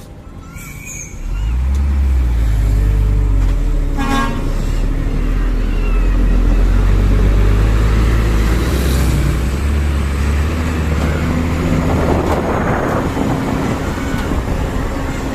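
A dump truck's ship-style trumpet air horn sounding one long, very deep blast that starts about a second in and holds for over ten seconds, stepping in pitch a few times, with a burst of hiss about twelve seconds in.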